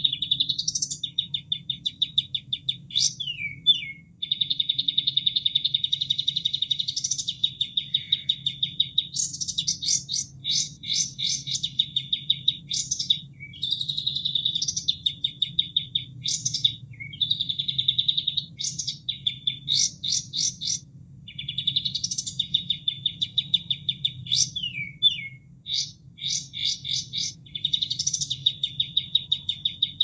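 Kapas tembak bird singing: long, fast rattling trills alternating with quick runs of separate sharp, clipped notes, repeated over and over.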